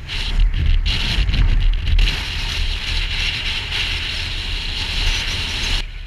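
Motorcycle riding at speed: wind buffeting the onboard microphone over a low engine rumble. The noise drops sharply near the end.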